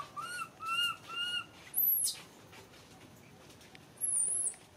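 Macaque calls: three short rising-and-falling coos in quick succession, then two very high, thin squeals, typical of a baby monkey calling while it clings to its carrier.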